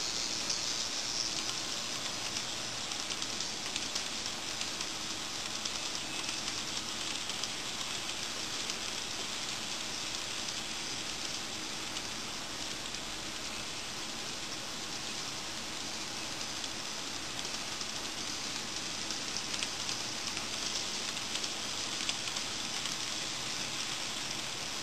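N gauge model freight train rolling past on desktop track: a steady, fine rattling hiss of small wheels running on the rails.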